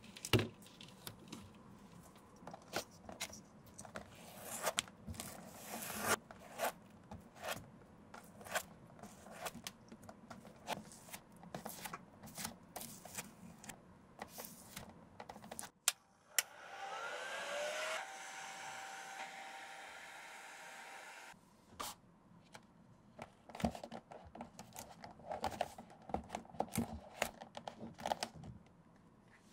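A glue brush stroking and dabbing adhesive onto rubber sole pieces and a shoe heel: many small scrapes and ticks. About 16 seconds in, a small hot-air blower starts with a rising whine, runs steadily for about five seconds and cuts off suddenly.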